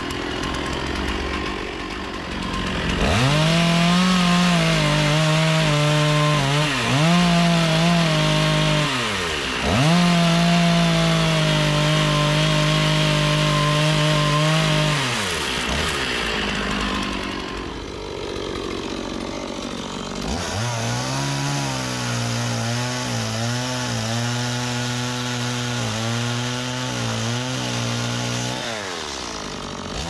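Stihl two-stroke chainsaw carving into a jackfruit root. It revs up hard about three seconds in and dips and rises a few times. It eases back in the middle, then runs at a lower, wavering pitch through most of the second half and falls off near the end.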